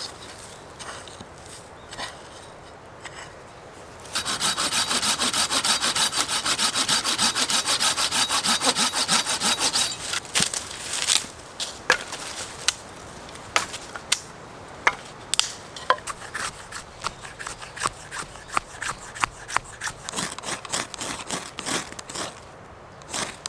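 A hand saw cutting through a piece of firewood in rapid back-and-forth strokes for about six seconds, starting a few seconds in, then scattered sharp wooden cracks and knocks as the wood is broken and handled.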